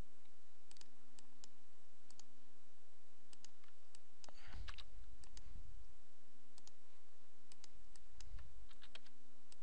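Computer mouse clicks and a few keyboard keystrokes, scattered single clicks while a software menu is worked and a value typed in. Two brief low rumbles, about five and eight seconds in, under a faint steady hum.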